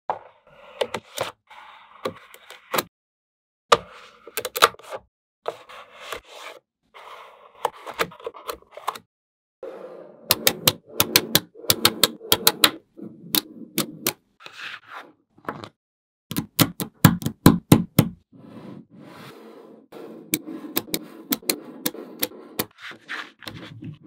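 Small neodymium magnet balls clicking sharply as they snap together and onto the model, with soft scraping and rolling between the clicks. The clicks come in quick rattling runs near the middle and again about two thirds through.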